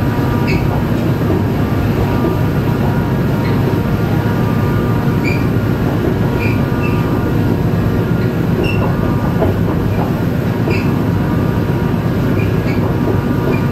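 Korail 7400-series diesel locomotive pulling away under power: a steady deep engine drone with short high squeaks here and there.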